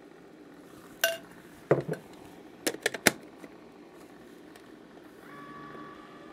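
A few sharp clinks and taps as a spatula scrapes the last of the mixture from a jug and a plastic lid is set on a compressor ice cream maker. About five seconds in, the machine starts up with a steady hum.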